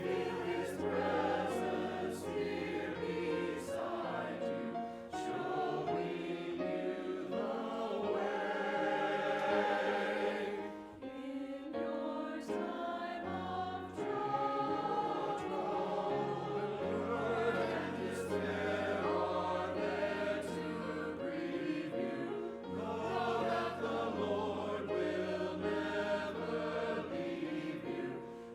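Church choir singing a musical benediction over sustained low accompaniment notes, with a brief lull about eleven seconds in.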